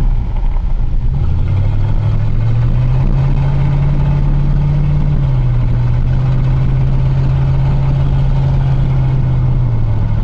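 Chevrolet pickup truck's V8 engine running under way. The engine note climbs over the first few seconds, holds steady, then eases down slightly about halfway through and again near the end.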